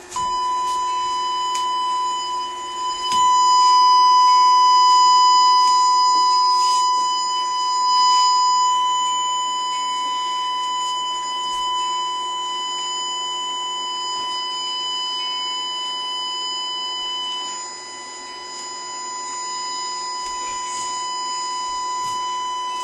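A continuous 1 kHz censor bleep tone, held unbroken, blotting out a long angry outburst of swearing. A few knocks show through underneath.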